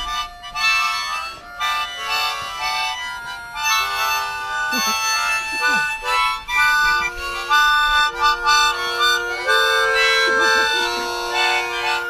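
Background music led by harmonica, playing held chords and a melody.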